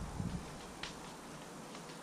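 Faint outdoor background hiss. A low rumble dies away in the first half-second, and a single faint click sounds a little under a second in.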